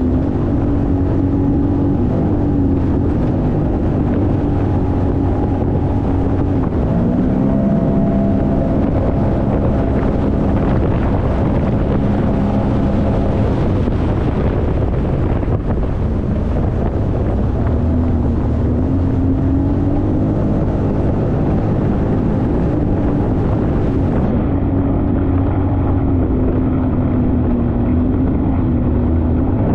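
Jet ski engine running under way, its note wavering up and down a few times, with wind buffeting the microphone.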